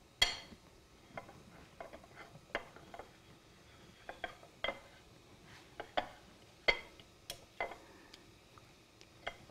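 Metal fork clinking and scraping against a ceramic plate while mashing softened butter into flour, in scattered, irregular taps.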